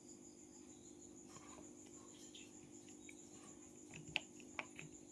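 Faint clicks of buttons being pressed on a Korg Pa700 arranger keyboard's panel, a few in quick succession near the end, over a faint steady hum and a thin high whine.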